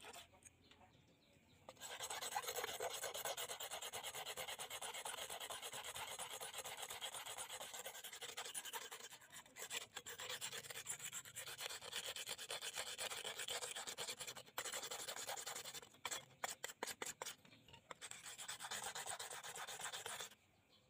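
A rusty steel chaff-cutter blade being scrubbed rapidly by hand with an abrasive to take off the rust: a dense, scratchy rasping of quick back-and-forth strokes. It starts about two seconds in, breaks into separate shorter strokes a few seconds before the end, and stops just before the end.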